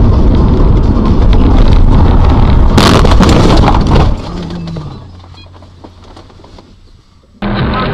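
Car crash heard from inside the colliding car: a loud rumble of driving noise, then a sharp crunching impact about three seconds in, after which the noise falls away to near quiet. Music comes in abruptly near the end.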